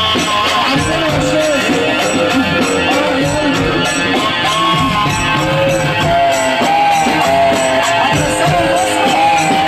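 Loud live Egyptian sha'bi wedding music: a wavering, ornamented melody line over a steady beat of hand drums and tambourine.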